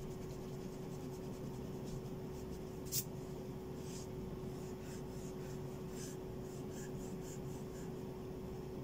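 Pencil-top rubber eraser rubbing on drawing paper in short back-and-forth strokes, erasing pencil guide lines, over a faint steady hum. A single sharp click sounds about three seconds in.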